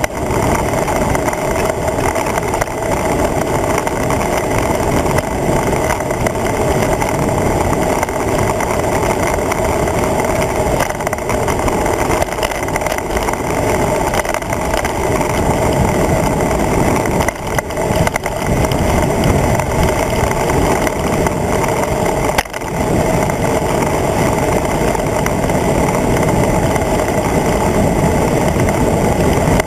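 Steady rush of wind and road noise on a handlebar-mounted camera's microphone as a road bike rides at speed on smooth tarmac.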